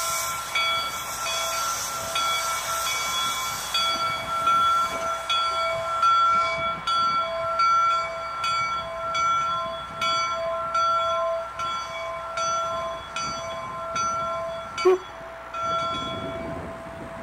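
Train whistle chord of several notes sounding together, held and swelling, over a regular clicking beat like wheels on rail joints. It cuts off about fifteen seconds in.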